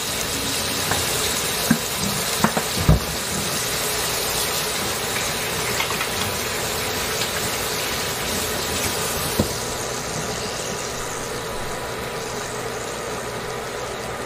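Chicken pieces frying in lard in a cast iron pan, a steady sizzle. A few sharp pops come in the first three seconds and one more about nine seconds in.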